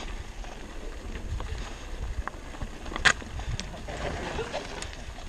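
Mountain bike riding down a rocky dirt trail: tyres rumbling over rock and dirt, with scattered rattles and clicks from the bike and wind on the camera microphone. A sharp clack about three seconds in is the loudest sound.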